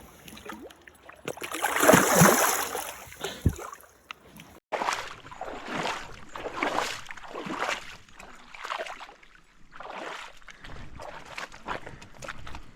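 Water splashing loudly, then a run of regular swishing strokes in the water, about one a second.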